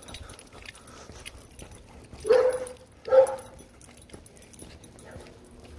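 A dog barks twice, a little under a second apart, a little over two seconds in.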